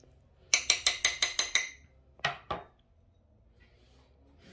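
A metal spoon clinks rapidly against a glass mixing bowl, about ten quick ringing strikes in just over a second, then two more knocks about half a second later.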